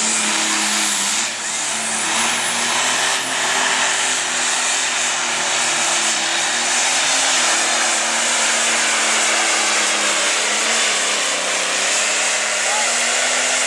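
Turbocharged diesel engine of a light pro stock pulling tractor running flat out under load as it drags the weight sled, with a high turbo whistle over the engine note.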